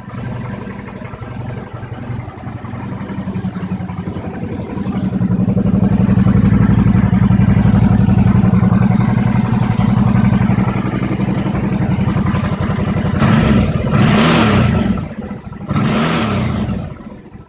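Suzuki DL650 V-Strom's 645 cc V-twin idling steadily through its stock exhaust, growing louder about five seconds in. Near the end it is revved in two bursts of quick throttle blips, each rising and falling.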